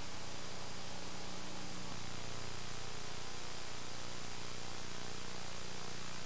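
Steady tape hiss with a low mains hum and a faint high-pitched whine, unchanging throughout: the blank noise floor of a VHS tape played back between segments.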